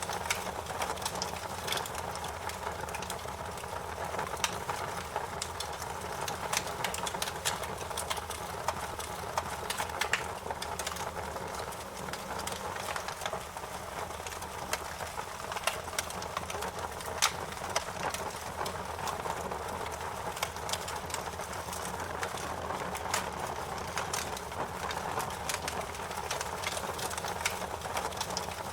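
Wood fire crackling in a fireplace: many small, irregular pops and snaps over a steady low rush of burning.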